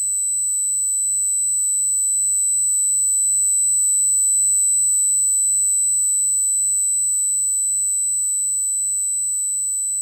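Synthesized space-like sound effect: a steady, high-pitched electronic tone with a faint low hum beneath it. It swells slightly toward the middle and then eases off.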